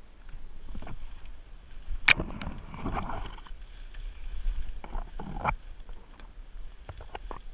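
Branches and dry brush swishing and scraping as someone pushes through thick undergrowth, with twigs cracking; the sharpest crack comes about two seconds in, with more snaps around five and seven seconds.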